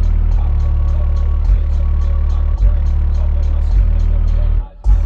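A 12-inch Re Audio SCX subwoofer in a sealed box plays loud, deep bass from a low-frequency test, the bass notes shifting about once a second. A light, regular ticking beat runs above it, about three or four a second. The sound cuts out for a moment near the end.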